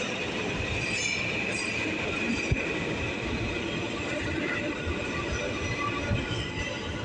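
Subway train running on the rails, its steel wheels giving a steady high-pitched squeal over a continuous rumble, with one sharp clack about two and a half seconds in.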